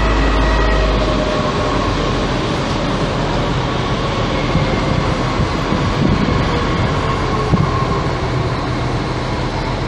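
DB Class 422 electric multiple unit, two units coupled, running past at the platform: a steady electric whine over the rumble of wheels on rail, with a few short knocks about halfway through.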